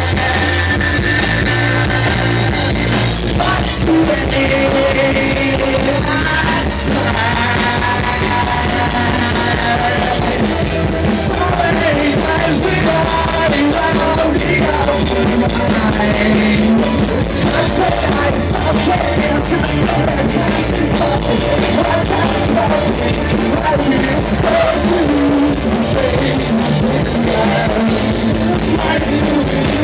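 Loud rock band playing with a singer: steady driving guitars and drums under sung vocals.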